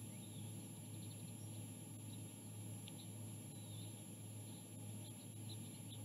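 Steady low electrical hum with a thin, steady high whine from the nest camera's audio. Over it come scattered faint, short chirps of distant small birds.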